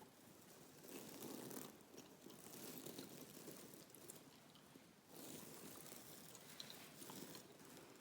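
Faint, close-miked gum chewing, soft wet crunching and mouth clicks in slow, uneven bouts with short pauses.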